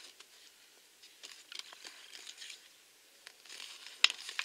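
Faint rustling of a folded paper leaflet and a few light clicks as a small plastic toy figure is handled. Louder paper crinkling starts near the end.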